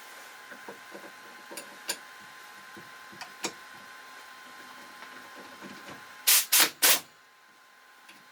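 Light clicks and taps from brake caliper parts and tools being handled. About six seconds in come three short, loud bursts of hissing spray or blown air.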